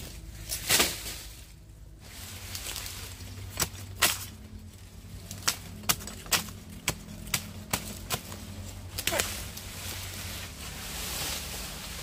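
Sugarcane being handled and cut: a run of sharp snaps and cracks, about a dozen at uneven intervals over several seconds, over a steady low hum.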